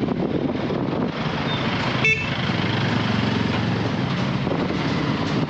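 Motorcycle running along the road, engine and road noise steady, with one short horn beep about two seconds in.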